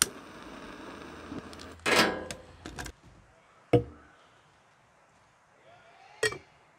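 Camp stove burner hissing as it is lit with a long lighter, with a short loud burst about two seconds in. Then two sharp metal clinks: a stainless steel mug set down on a wooden table, and a stainless pour-over coffee dripper set onto it.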